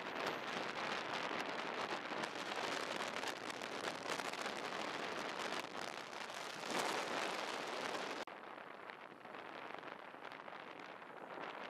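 Steady wind and road rush picked up by a camera riding on a moving motorbike. It drops abruptly to a quieter, duller hiss about eight seconds in.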